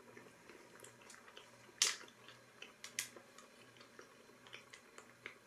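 Faint close-up chewing and mouth clicks, with two sharper clicks about two and three seconds in.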